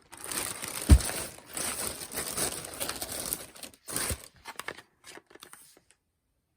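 Crinkling and rustling as bags are handled, with two low thumps: a loud one about a second in and a smaller one about four seconds in. The rustling dies away about six seconds in.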